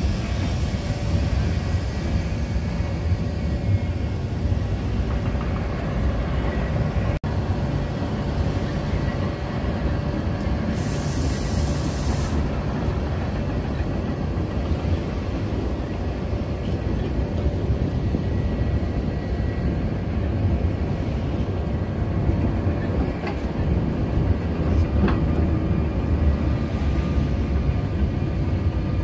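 Sóller tram's vintage wooden electric car running along its rails, heard from aboard: a steady low rumble of wheels and car body. A brief high hiss comes about eleven seconds in.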